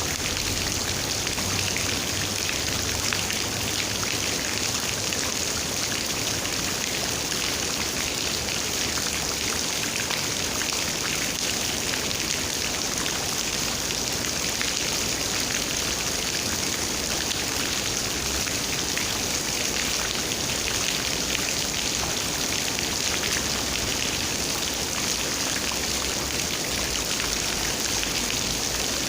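Steady rain, with dense fine raindrops pattering on surfaces.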